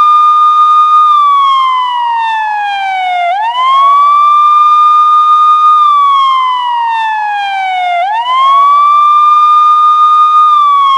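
Police siren sound effect in wail mode: the tone sweeps quickly up, holds its high note for about a second and a half, then glides slowly down, starting over about every five seconds.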